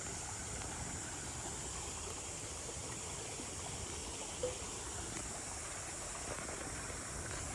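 Steady rush of creek water flowing, with one brief click about four and a half seconds in.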